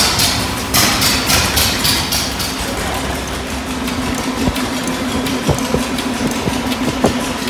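Heavy engine of old construction machinery running, pulsing about three times a second at first, then settling into a steadier hum with a few knocks.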